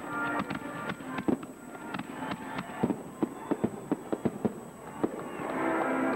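Fireworks going off: a string of sharp bangs and crackles, thickest about three to four and a half seconds in.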